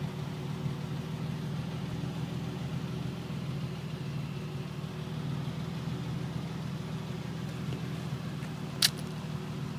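2003 Nissan 350Z's 3.5-litre VQ35 V6 idling steadily through a custom exhaust, a low even burble with no revving. A single sharp click about nine seconds in.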